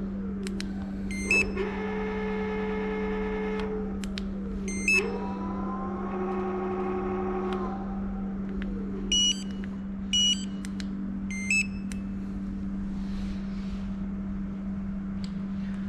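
Electric scooter's hub motor spinning freely under throttle, giving a pitched electric whine twice, each run a few seconds long before winding down. Short electronic beeps from the console as the speed modes are switched come before each run and three more times afterwards, all over a steady low hum.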